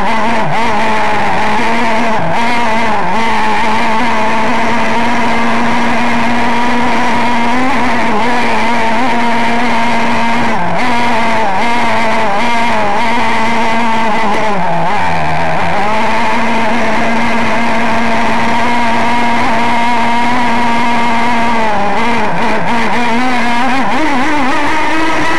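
OS 21-RXM .21 nitro glow engine of an RC model power boat running at high revs with a steady high pitch. The revs sag briefly about midway, recover, and climb again near the end.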